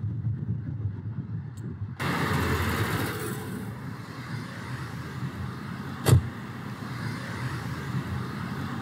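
Car and road noise: a steady low rumble, with a sudden louder rush of noise about two seconds in that fades after a second or so. A single sharp thump comes about six seconds in.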